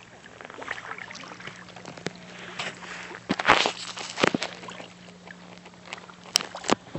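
Kayak paddles dipping and dripping in calm water, in light scattered splashes. A few louder sudden knocks and a brief rush of noise come just past halfway, and two sharp clicks near the end.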